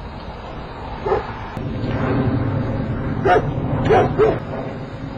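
Newfoundland dog barking: one bark about a second in, then three barks close together. The dog is getting mad.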